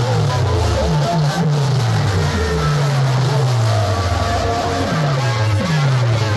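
Loud DJ track played through a bank of horn loudspeakers, driven by deep bass notes, several of which slide downward in pitch over about half a second.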